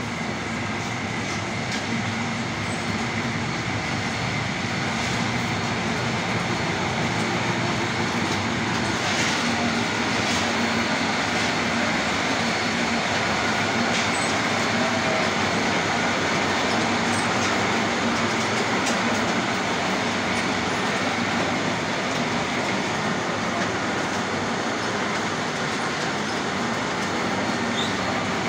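A row of palm kernel oil expellers driven by electric motors running together, a steady dense mechanical din with a hum and scattered light clicks.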